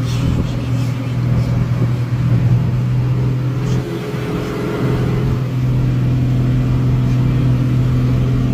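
A motor vehicle engine running at a steady pitch, a constant low hum with a rushing noise behind it.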